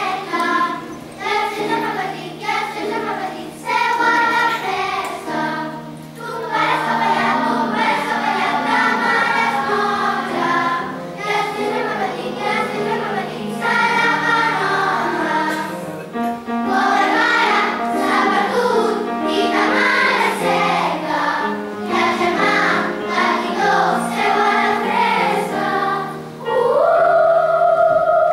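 Children's choir singing a Catalan folk song in unison with piano accompaniment. Near the end the voices slide up into a long held note.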